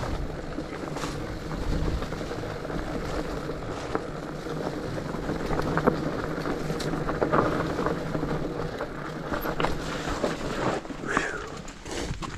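Rigid fat bike rolling down a rough dirt trail: a steady rumble from the wide tyres, with scattered clicks and knocks as the bike rattles over bumps.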